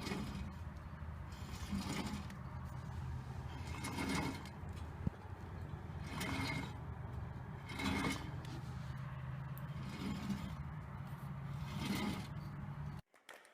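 Hyundai Getz wheel bearing turning, with a scraping noise that comes round about every two seconds over a steady low hum.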